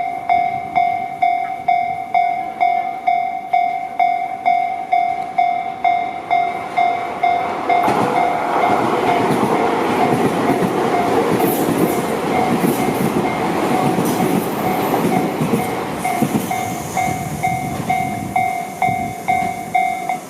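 Japanese level-crossing warning bell ringing, a steady evenly repeated ding. About eight seconds in, a Tobu Tojo Line electric commuter train rolls through the crossing, its wheels rattling over the rails, while the bell keeps ringing.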